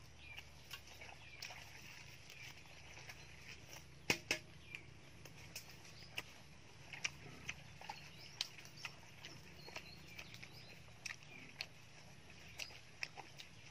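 Close-up eating sounds: a man chewing a mouthful with his lips closed, giving irregular wet smacking clicks, the loudest pair about four seconds in. Faint chirping runs behind.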